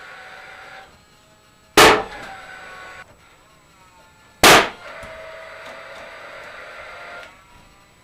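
Paslode cordless framing nailer firing twice, about three seconds apart, driving nails through the bottom plate into the studs of a wall frame. Each shot is a sharp, loud bang with a short ring, and a steady hum runs between the shots and dies away before each one.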